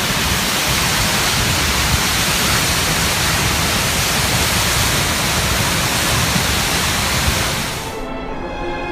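Loud, steady rush of Seljalandsfoss waterfall heard close up as its water falls into the pool below. About eight seconds in it cuts off and background music begins.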